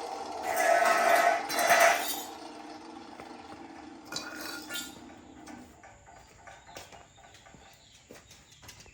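Allefix 14-inch abrasive cut-off saw spinning down after a cut, its motor tone falling in pitch. Loud harsh metallic noise comes from about half a second to two seconds in, then two shorter ringing metal clinks and a run of light clicks and taps.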